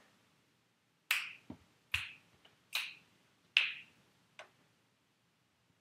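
Finger snaps keeping time, about one every 0.8 seconds: four sharp snaps and a fainter fifth. Two soft low thuds come between the first snaps.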